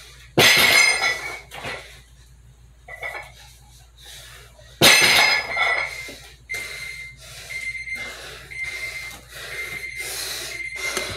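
A loaded barbell with iron plates knocked down onto a wooden floor twice, each time a sharp clank with the plates ringing. After that comes a run of hard breathing.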